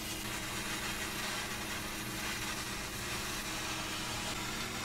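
Oxy-fuel heating torch flame hissing steadily while it heats a steel bar, with a low steady hum underneath.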